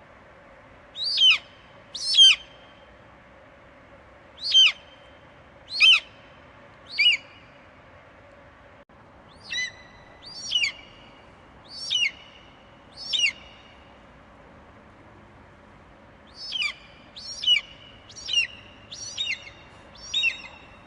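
Eagle calling: a series of short, shrill screech notes, each falling steeply in pitch, coming in groups of two to six over a faint steady hiss.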